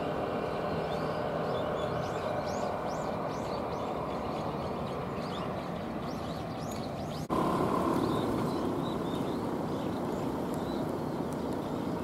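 Steady road and rail-yard traffic noise, with small birds chirping over it in the first half. About seven seconds in, the sound breaks off for an instant and comes back slightly louder.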